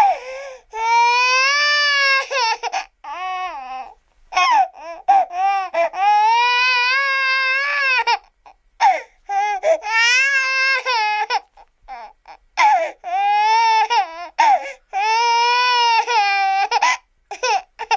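High-pitched crying voice wailing in long drawn-out cries of one to three seconds each. The pitch bends up and down, with short breaks and quick catches between cries.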